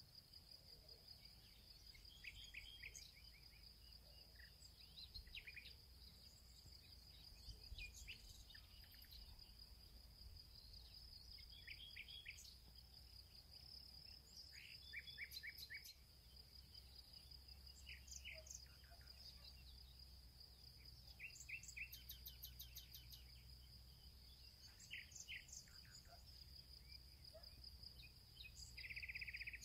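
Faint birdsong: short chirps and trills scattered throughout, over a steady high-pitched insect drone like crickets.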